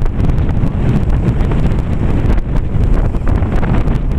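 Wind buffeting the microphone: a steady low rumble with many short crackles.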